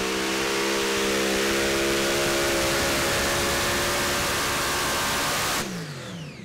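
Heavy Modified pulling tractor's multiple Brad Anderson V8 engines running flat out under load, a loud, steady scream as it drags the sled. About five and a half seconds in the engines are cut and wind down, their pitch falling, as the pull ends short of the full pull.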